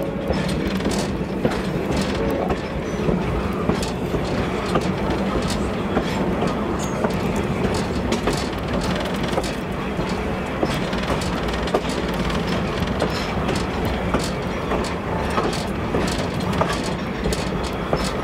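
Train rolling on the rails: a steady low rumble with a constant hum, and frequent sharp clicks of wheels over rail joints.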